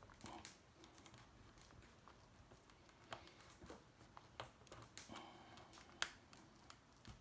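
Faint, scattered clicks and small creaks of a plastic pry tool working under the edge of a BMW iDrive controller's touchpad, with one sharper click about six seconds in.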